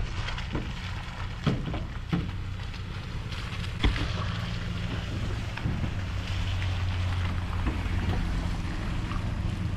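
Pickup truck engine running with a steady low hum, under an even hiss of rain and wind on the microphone. A few short knocks come through, the loudest about four seconds in.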